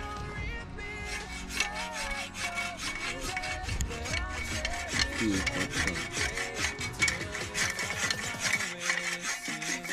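Hacksaw cutting steel rebar in repeated back-and-forth rasping strokes, with faint music underneath.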